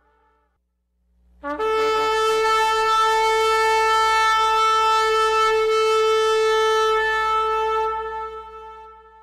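A shofar sounds one long, steady blast about a second and a half in. It opens with a brief lower note, jumps up to the held pitch, and fades away near the end.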